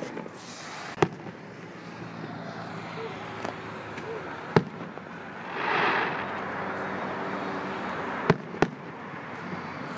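Aerial fireworks bursting: sharp bangs about a second in, near the middle, and a quick pair about eight seconds in, with a brief hiss swelling and fading around six seconds.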